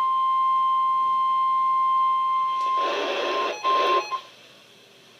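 NOAA Weather Radio 1050 Hz warning alarm tone, a single steady beep that marks the start of an emergency alert broadcast. It cuts off about two and a half seconds in, followed by a brief burst of radio static and then faint hiss.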